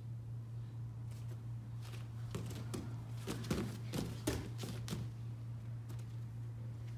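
Bare feet and hands slapping and thudding on foam gym mats as two kids drop into a sprawl and scramble back up: a run of quick slaps and thumps in the middle, over a steady low hum.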